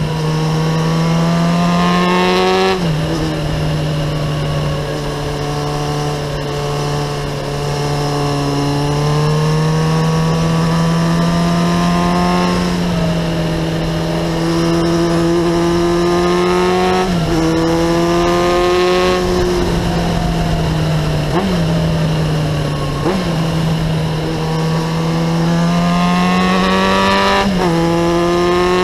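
Kawasaki ZX-9R's inline-four engine through a Remus aftermarket exhaust, running under load on the move. Its pitch climbs and then drops suddenly several times as the rider works the throttle and gears.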